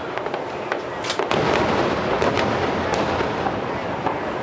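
Fireworks display: aerial shells bursting in quick succession, sharp cracks and bangs over a continuous rumble.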